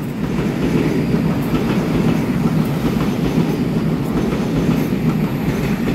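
EMU900 electric multiple unit commuter train passing close by: a steady rumble of wheels on rails, with occasional clacks as the wheels cross rail joints.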